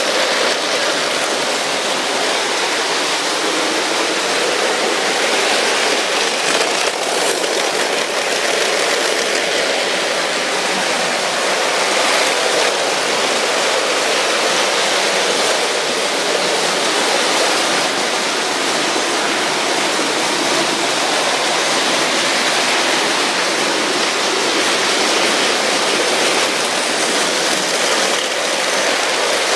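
Several Lego trains running at once on plastic track: the wheels and motors make a steady rushing rattle with no breaks.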